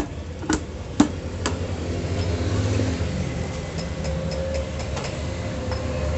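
Four sharp knocks about half a second apart as hands fit the plastic CVT cover of a Honda Vario scooter back into place, then a low steady hum swells up behind them.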